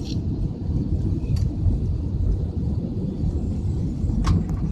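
Airbus A320 cabin noise during the climb after takeoff: a steady low rumble of engines and airflow, heard from inside the cabin. Two faint clicks, about a second in and near the end.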